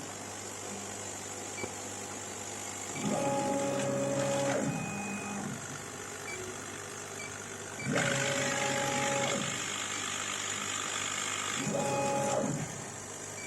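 Laser engraving machine's gantry stepper motors whining through three short moves, each a second or so long, over a steady hum of running fans. A louder hiss rises with the second move and holds until the third move ends.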